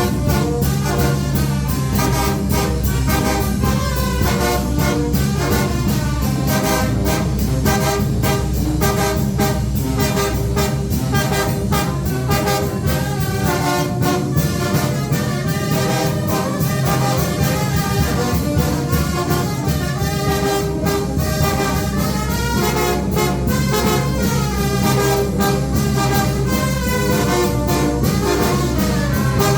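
Mexican village wind band (banda de viento) playing, with trumpets and trombones carrying the tune over a low bass line and a steady drum beat.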